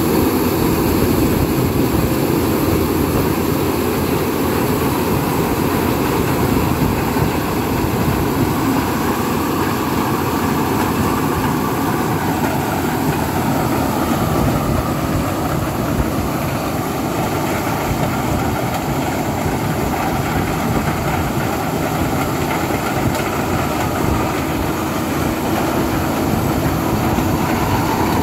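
Corn combine harvester running steadily as it cuts and threshes standing corn: a continuous engine and machinery noise that grows a little fainter in the middle as the machine moves off, then louder again near the end.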